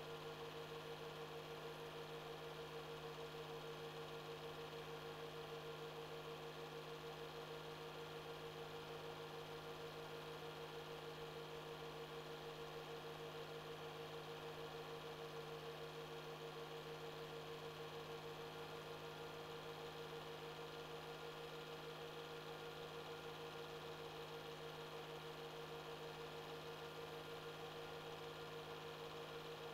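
Steady faint electrical hum of two unchanging tones, a low one and a stronger higher one, over light hiss: the only sound on a silent 8mm film transfer.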